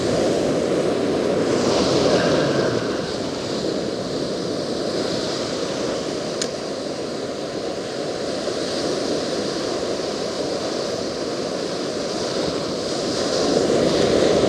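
Ocean surf breaking and washing up the beach, swelling louder at the start and again near the end, with some wind on the microphone.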